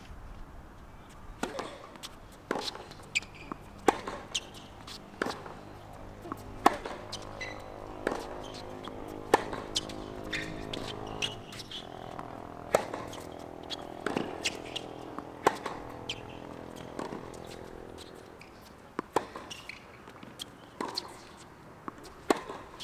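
Tennis rally on a hard court: sharp pops of rackets striking the ball about every second to second and a half, with fainter bounces of the ball between. A low hum of several steady tones sits in the background through the middle.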